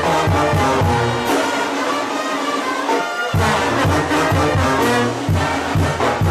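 A brass band plays, with horns holding sustained notes over a rhythmic bass pulse. The bass drops out for about two seconds around the middle, then comes back.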